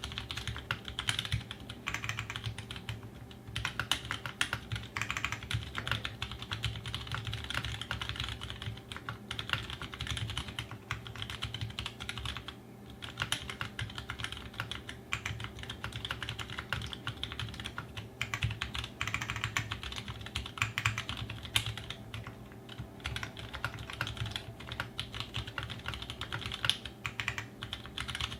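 Continuous fast typing on an Aquaria 60% custom mechanical keyboard with Halo Ergo switches (Halo housings, Cherry MX Clear stems, 62 g springs), an aluminium plate and GMK Laser keycaps: a dense stream of keystroke clicks broken by a few brief pauses.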